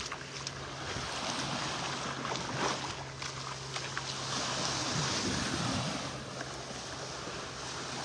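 Small waves lapping at the shoreline, a steady wash of water with wind on the microphone.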